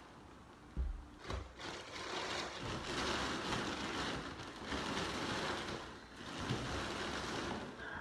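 Packaging rustling and scraping as a subwoofer is pulled out of its shipping box, with a couple of dull thumps about a second in.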